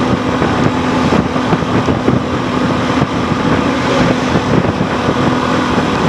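Suzuki V-Strom 250 motorcycle engine running steadily at road speed, under heavy wind rush on an unshielded microphone.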